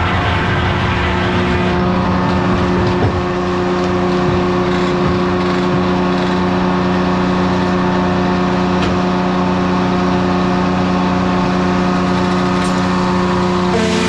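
A 1953 Detroit Diesel two-stroke power unit running steadily at constant speed, driving the sawmill. A few faint knocks sound over it.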